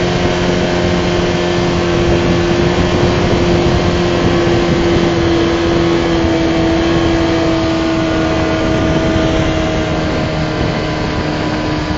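Yamaha 25 hp two-stroke outboard motor running steadily at speed, holding an even pitch, over the rush of water from the boat's wake.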